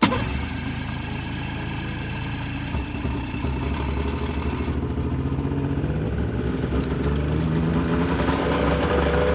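Snowmobile engine running steadily, growing slowly louder.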